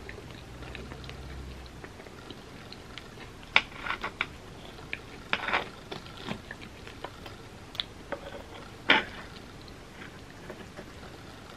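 Close-up eating sounds: chewing and wet mouth sounds of a soft, gooey cookie and ice cream, with a metal spoon scraping and tapping in the dish. Scattered sharp clicks, the loudest about three and a half seconds in and again near nine seconds.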